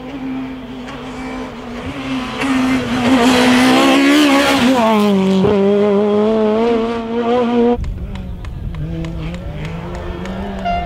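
A Maxi kit-car rally car's two-litre four-cylinder engine running at high revs as the car goes past. It is loudest in the middle, where the pitch climbs and then drops sharply. It cuts off suddenly about three quarters of the way in, and a different rally engine follows at a lower pitch.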